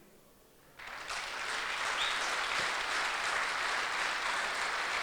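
Audience applauding, starting about a second in and holding steady as a dense clapping.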